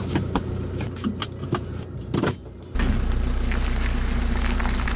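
Stock Chevrolet Colorado ZR2's 2.8-litre Duramax four-cylinder turbodiesel running on its factory exhaust. Scattered clicks and a low hum at first; a bit under three seconds in it switches to a steady, loud low drone heard close to the tailpipe.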